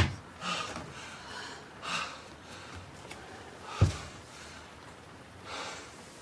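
A man breathing hard in heavy, audible breaths, out of breath. A dull thump just before four seconds in as he drops to his knees on the tatami floor.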